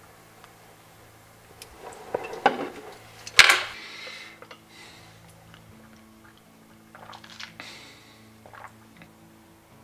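A glass candle jar handled and set down on a wooden side table: a few light knocks, then one sharp clink about three and a half seconds in, with faint small clicks and rustles later.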